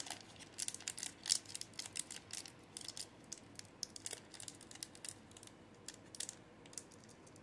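Pokémon trading cards from a freshly torn-open booster pack being handled and slid against one another: a faint run of light, irregular clicks and snaps, one a little louder about a second in.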